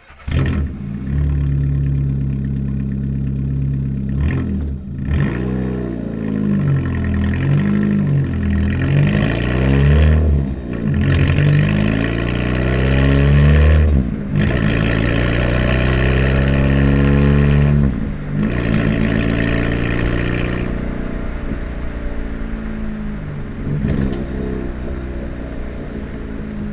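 A car engine with a damaged muffler starts at once and runs with a loud exhaust note, revving up and down. The note drops and picks up again about four times, as with gear changes while driving off, and it settles lower near the end.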